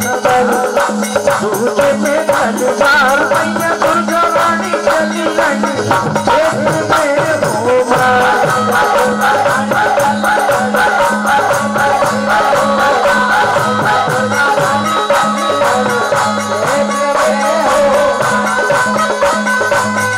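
Instrumental passage of live Indian devotional folk music. A wavering melody runs over a steady dholak beat and a fast shaken-percussion pattern.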